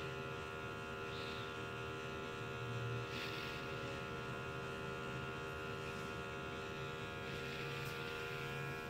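Steady electrical hum and buzz made of several fixed tones, even throughout.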